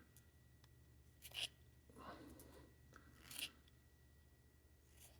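Razor blade shaving wood from a Conté à Paris Pierre Noire pencil: three short, faint scraping strokes, the clearest about a second and a half in.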